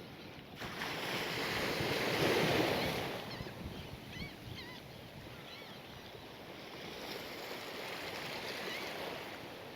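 Sea waves washing ashore: one wash swells up about a second in and dies away, and a softer one follows near the end, with faint bird chirps between.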